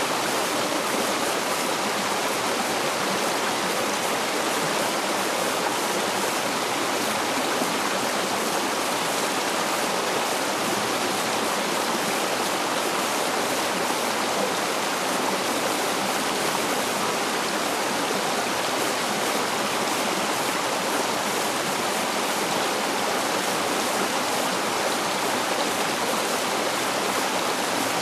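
Small rocky stream running over and between boulders: a steady, even rush of water.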